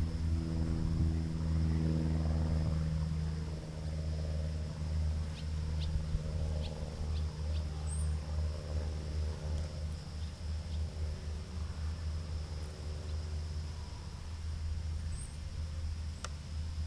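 Engine idling nearby, a low steady hum, with a few brief high bird chirps over it.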